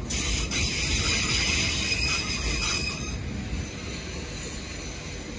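Electric multiple-unit passenger train rolling past along the platform, its wheels running on the rails with a steady high-pitched squeal over the rumble. The sound eases after about three seconds as the train moves on.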